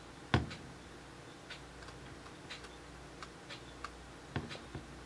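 Computer mouse clicking: one sharp click with a thump just after the start, then a string of light, irregular clicks, with a stronger one near the end.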